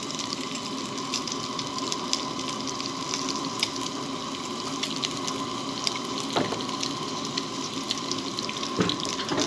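Bacon sizzling and crackling in a cast-iron skillet over a propane camp stove burner: a steady frying hiss sprinkled with small pops.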